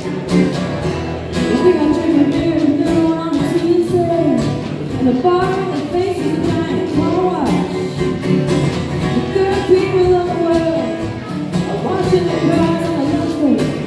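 Live acoustic band: two acoustic guitars strummed under a woman's lead vocal, with a shaker keeping a steady rhythm.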